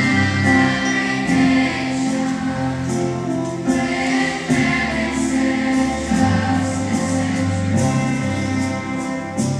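School choir singing a patriotic song, the voices holding long notes that change every second or two.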